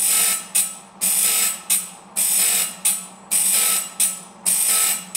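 Saw-sharpening grinder at work: its motor hums steadily while the grinding wheel grinds the saw teeth one after another. Each pass is a hissing grind that repeats about once a second, with a long grind followed by a short one.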